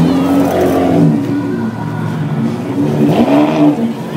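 Ferrari and Lamborghini supercar engines driving slowly past and revving in short throttle blips, one near the start and another about three seconds in.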